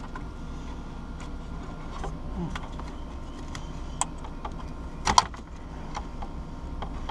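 Plastic wiring-harness connectors being unclipped and pulled from the back of a factory car radio: scattered small clicks and rattles, the loudest pair about five seconds in.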